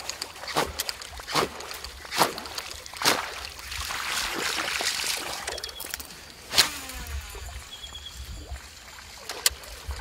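Short, sharp splashes on the water, about one a second for the first three seconds and two more later on, over light water sloshing against a small boat.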